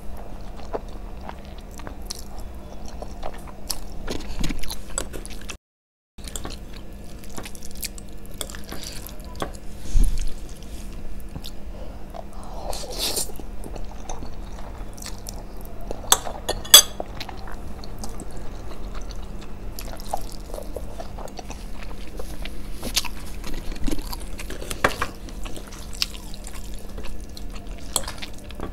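Close-miked eating sounds: spicy Korean instant noodles being slurped and chewed, with a continual run of wet mouth sounds and a few sharper clicks.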